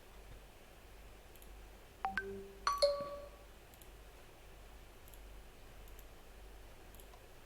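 An electronic ding-dong chime about two seconds in: two quick notes, the second louder and ringing on for about half a second, over faint room tone.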